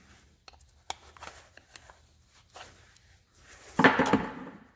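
Light clicks and taps of a metal planter clutch hub and hand tools being handled on a wooden workbench, then a louder clatter with a short metallic ring about four seconds in.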